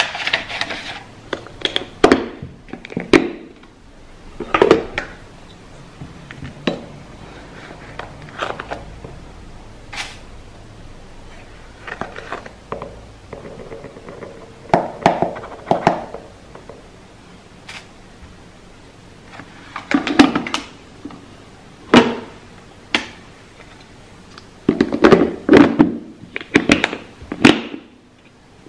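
Kitchen items being handled: a series of plastic clicks and knocks with short scraping and rustling stretches, as a drip coffee maker's filter basket and a clear plastic lidded container are worked by hand.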